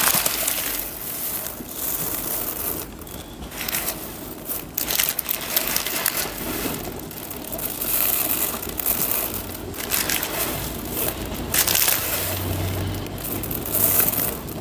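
Dried mung beans being poured, a dense granular rattle and hiss that comes in repeated pours broken by short pauses.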